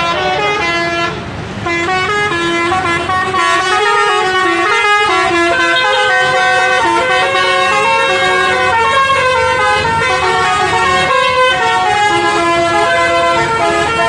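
Basuri-type 'telolet' musical air horn on a Sudiro Tungga Jaya bus playing a long melody of loud stepped notes, with a brief dip about a second in.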